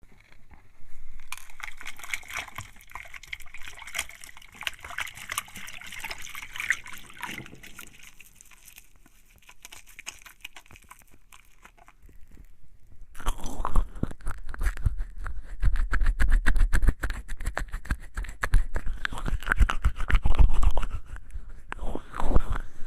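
Hands being washed with a bar of soap, close-miked: wet rubbing and squelching of soapy skin and soap. Softer and crisper at first, it grows louder and fuller about thirteen seconds in.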